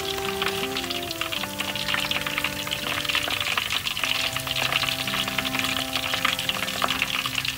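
Hot oil crackling and sizzling in a wok as a whole giant gourami deep-fries and is lifted out with chopsticks, over background music of held notes that change pitch every half second or so.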